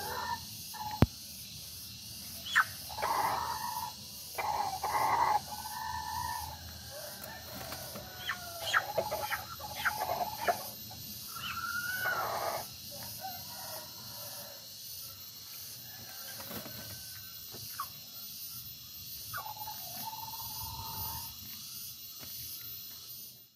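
Chickens squawking and clucking in short calls, again and again, with a sharp click about a second in.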